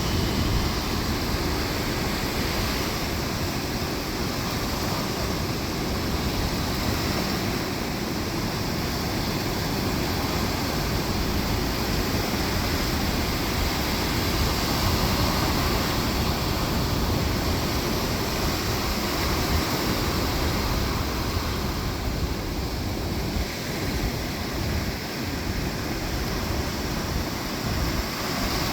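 Atlantic surf breaking on a sandy beach: a steady wash of waves with a gentle swell and ease in loudness, and a constant low rumble that may include wind on the microphone.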